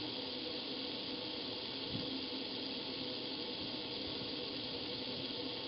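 Outdoor water faucet left running full blast, a steady rush of water through a doorbell camera's microphone.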